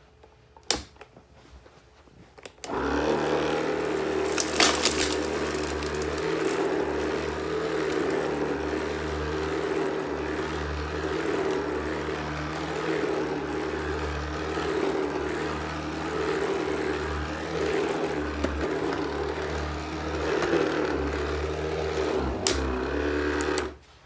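Shark Swivel cordless sweeper switched on about three seconds in. Its small motor and brush roll run steadily as it is pushed over carpet, with a short crackle soon after it starts as it takes in the pile of debris. It switches off about half a second before the end.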